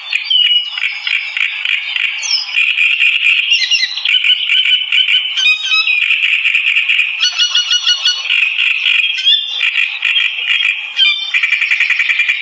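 Songbird singing a continuous, rapid chattering song, with a few clear whistled phrases mixed in.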